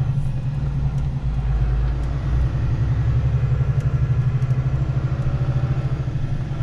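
Diesel engine of a long-haul truck idling steadily with a fast, even low pulse, heard from inside the cab while it warms up.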